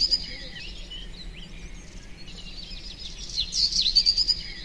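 Birds chirping and twittering, as in a background birdsong track. A loud burst of twittering comes at the start and the same burst comes again about four seconds later.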